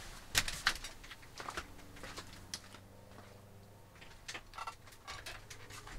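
A few scattered light clicks and knocks, the sound of someone handling things and moving about in a small workshop, over a faint steady hum.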